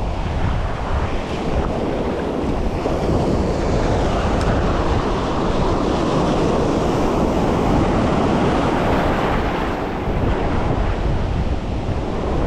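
Ocean surf breaking and washing up the beach, with strong wind buffeting the microphone, a steady rumbling rush that grows a little fuller around the middle.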